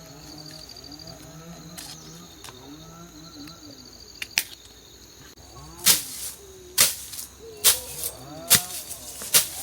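Sharp knocks repeating about once a second, starting about six seconds in, over a steady high insect drone and scattered calls that bend in pitch.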